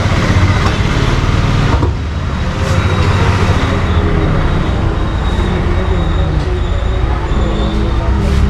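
Steady low rumble of road traffic, with faint voices behind it.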